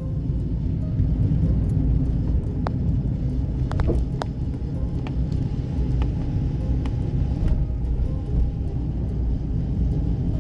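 Steady low road rumble of a car driving on a wet road, heard from inside the cabin, with a few scattered light ticks.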